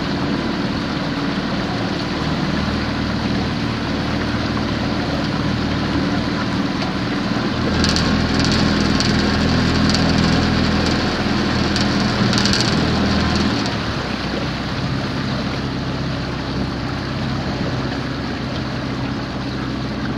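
Outboard motor of a small boat running steadily at low speed, getting louder for several seconds in the middle before settling back.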